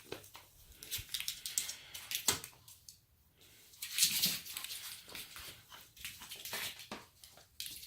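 A long-haired chihuahua puppy at play, making an irregular run of short scratchy, rustling and clicking noises.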